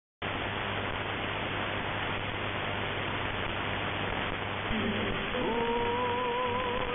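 Longwave AM radio reception through a web SDR receiver tuned to 225 kHz: loud static hiss with a steady low hum cuts in suddenly just after the start. About five seconds in, weak music from the Polskie Radio Jedynka broadcast begins to come through the noise.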